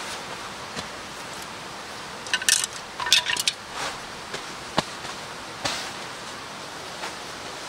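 Heavy wool blanket being spread and smoothed by hand on the ground, with soft cloth rustles and a few short sharp clinks and scrapes between about two and a half and three and a half seconds in, over a steady background hiss.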